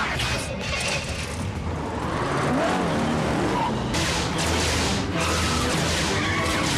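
Cartoon action-scene soundtrack: dramatic music over a dense, continuous wash of sound effects with booms, getting louder about four seconds in.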